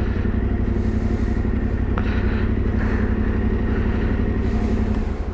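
Yamaha Ténéré 700's parallel-twin engine running at a steady, unchanging pitch.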